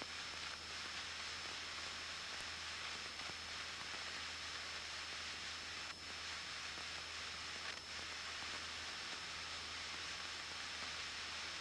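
Steady faint hiss with a low hum and a thin high whine: the background of a Cessna 172N cockpit in flight as heard through the headset intercom audio, with the engine muffled.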